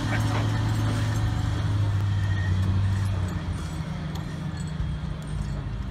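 Log Champ LC550 grapple yarder's diesel engine working with a steady low drone, which eases off about three seconds in.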